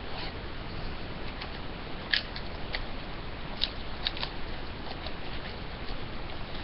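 A sealed box of hockey cards being opened by hand: several sharp crackles and snaps of wrapping and cardboard over a steady hiss, the loudest a couple of seconds in.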